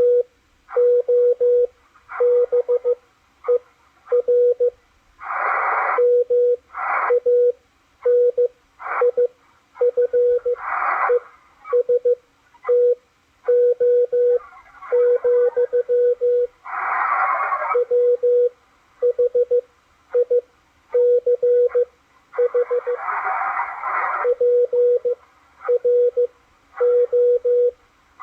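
Morse code (CW) signal from a Machilite DSP SDR receiver's speaker: a single steady beep keyed on and off in long and short marks. Every few seconds a burst of hiss comes up over it.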